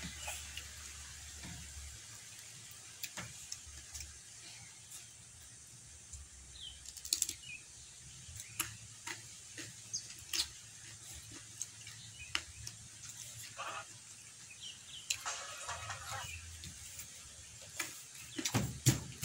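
Close-up sounds of eating by hand: fingers working rice and sambal in a clay bowl and mouth chewing, heard as scattered small clicks, squelches and short crunches. The clicks come more thickly near the end.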